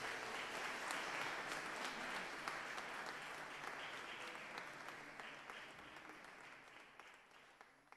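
Audience applauding, a dense patter of clapping that fades away gradually.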